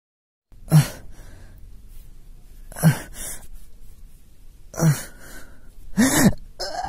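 A man's sharp gasps of pain, four of them about two seconds apart, the last drawn out into a groan that rises and falls in pitch.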